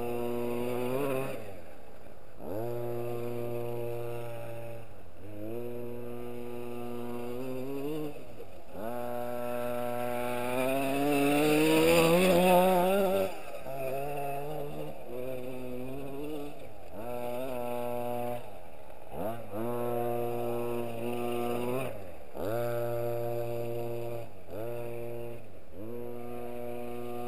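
The 26cc two-stroke petrol engine of a Himoto 1/5-scale RC truck revving up and dropping back over and over as it is driven, the pitch climbing and falling every two to three seconds. About ten to thirteen seconds in it holds a longer, higher and louder run before dropping back.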